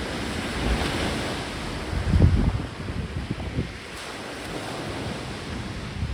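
Ocean surf breaking and washing up onto a pebble beach, with wind buffeting the microphone in low gusts, the strongest about two seconds in and another near the end.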